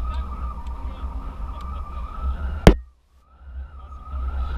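A vehicle on the move, with a steady whine over a low rumble of wind on the microphone. A bit past halfway there is one sharp knock, then the sound cuts out for a moment and fades back in.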